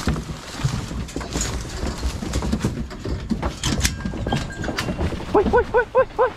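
Clicks, knocks and rustling as the metal dog box on a pickup is worked open, then near the end a deer hound barks in a quick run of about six short yelps, each rising and falling in pitch.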